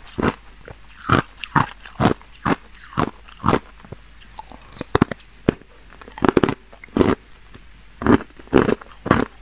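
Hard, clear ice being bitten and chewed, cracking and crunching between the teeth about twice a second, with a short pause around four seconds in.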